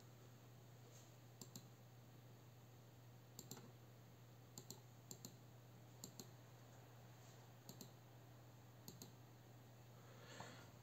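Near silence with faint scattered clicks, several in quick pairs, from operating the laptop's controls to change the score, over a low steady hum.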